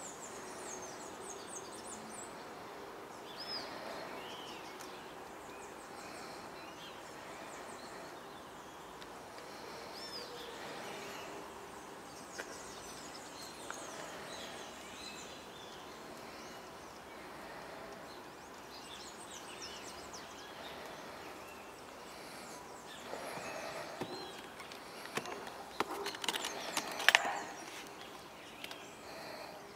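Outdoor ambience with songbirds chirping in short gliding calls over a steady background hiss. Near the end comes a run of clicks and knocks from the metal latches and lid of a hard instrument case being handled, the loudest a single sharp click.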